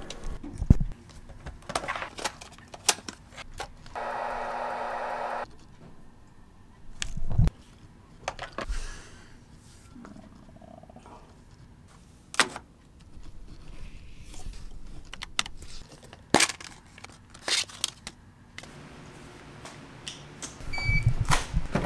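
Scattered sharp clicks and knocks of objects being handled, with a steady buzz lasting about a second and a half about four seconds in.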